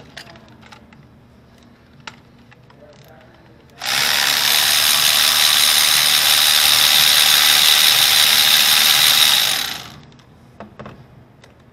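Cordless electric ratchet running steadily for about six seconds, spinning a spark plug socket on a long extension down a spark plug well of a 2.0L four-cylinder engine, a high whine over a hiss. It starts and stops abruptly, with a few light clicks and knocks of handling tools and parts before and after.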